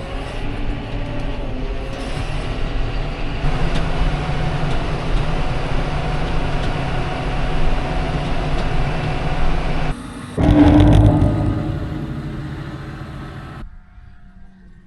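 A vehicle engine running steadily, broken by a sudden cut about ten seconds in, then louder for a moment before fading and stopping abruptly near the end.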